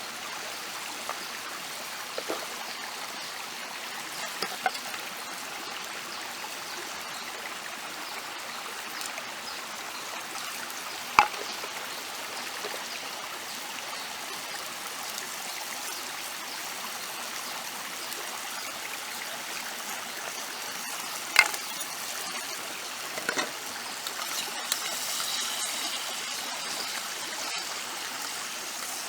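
Steady rush of a flowing stream, broken by a few sharp clicks or knocks; the two loudest come about a third and about three quarters of the way through.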